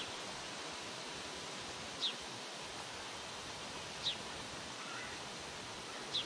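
A small bird chirping, a short high note sliding downward about every two seconds, with two quick chirps together near the end, over a steady outdoor hiss.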